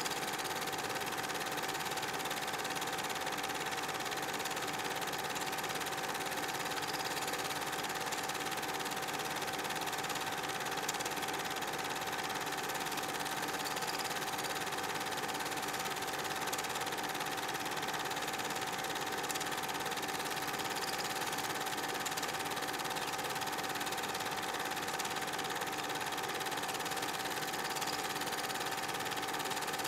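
8 mm film projector running: a steady mechanical whirring with a constant hum.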